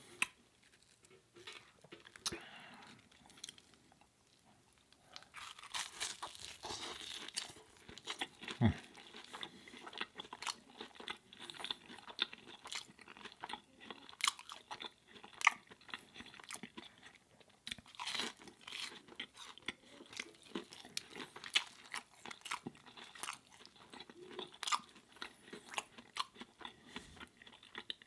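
A person biting and chewing crunchy food close to the microphone: a steady run of many small crunches and mouth clicks.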